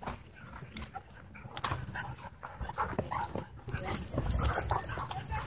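A husky and a white dog wrestling in play, making a run of short dog vocal sounds that come thicker and louder in the second half.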